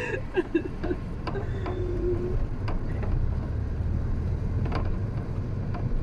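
Inside a car moving slowly through town: a steady low rumble of engine and road noise, with a few faint clicks.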